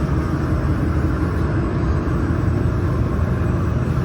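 Steady low rumble and hum of the laser welding machine's water chiller running just after being switched on.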